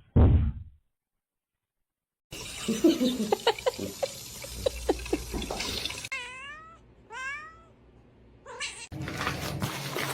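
A cat meowing twice, short calls about a second apart, a little after the middle. Before them, a few seconds of rushing noise with scattered clicks; a brief thump comes right at the start.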